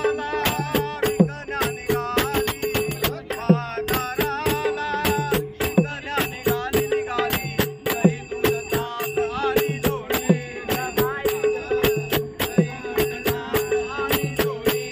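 An elderly man singing a devotional bhajan in praise of Hari, with a wavering voice over a steady drone. Small cymbals strike a regular beat, with drum thumps underneath.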